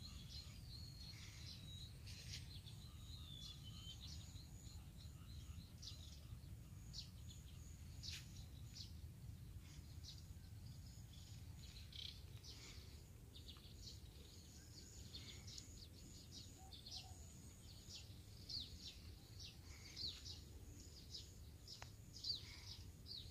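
Faint, scattered chirps and short calls of small birds, many brief notes coming irregularly, over a steady low background noise.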